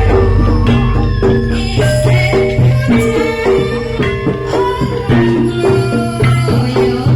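Live Javanese gamelan music accompanying a jaran kepang (kuda lumping) and barong dance: rapid repeated metallophone notes and drum strikes over a low, sustained booming tone.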